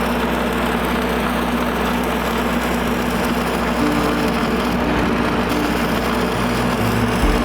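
An engine running steadily with a constant hum and a few steady tones, and a second tone joining about halfway through.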